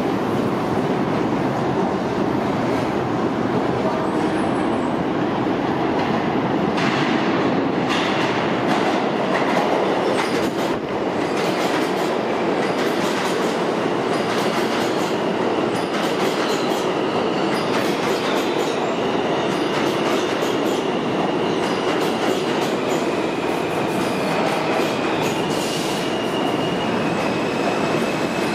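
A New York City subway train comes out of the tunnel and rolls along the platform. Its rumble builds into wheel clatter over the rail joints, and a steady high whine joins in about halfway through.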